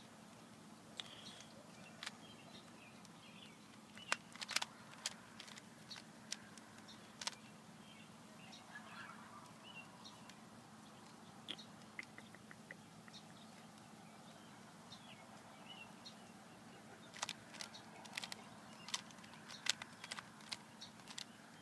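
Rubik's Cube being turned by hand: irregular sharp plastic clicks of the layers rotating, coming in quick clusters with pauses between, over a faint steady hum.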